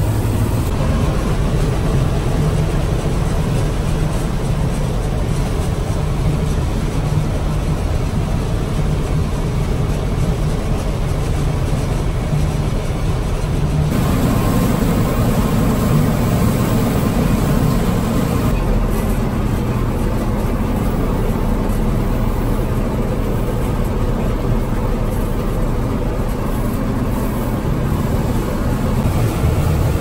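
Gleaner F2 combine running while harvesting corn, heard from inside the cab as a steady, loud mechanical drone of engine and threshing machinery. The drone's tone shifts slightly about halfway through.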